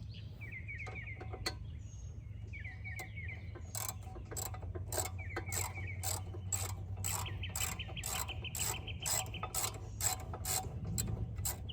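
Hand ratchet wrench clicking as a bolt is turned: short runs of fast ratcheting, then from about four seconds a long series of sharper clicks, roughly three a second.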